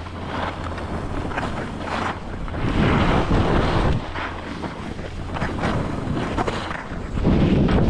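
Wind buffeting the microphone over the hiss and scrape of edges sliding across packed snow on a downhill run. The noise swells louder about three seconds in and again near the end as the rider turns.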